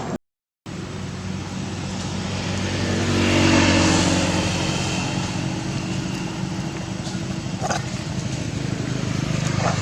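After a brief dropout at the very start, a motor vehicle engine is heard passing, growing louder to a peak about three and a half seconds in and then settling to a steady hum.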